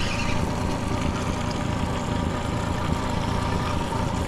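Honda 30 hp four-stroke outboard motor running steadily over a constant hiss.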